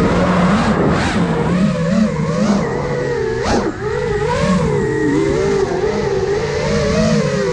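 Brushless motors and propellers of an iFlight Nazgul Evoque F5 five-inch FPV quadcopter whining in flight. Several pitches rise and fall together as the throttle changes, with a quick sharp rise and fall about three and a half seconds in.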